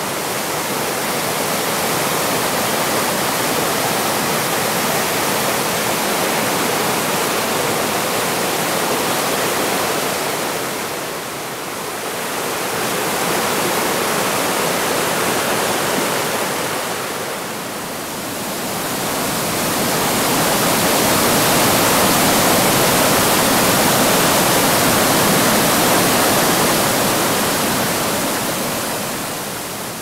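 Waterfall rushing over rock ledges into churning whitewater: a steady, loud rush of falling water that dips briefly twice.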